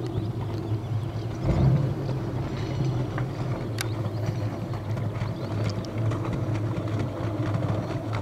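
Baja 240 boat's V8 engine running steadily, with a brief swell in level about a second and a half in.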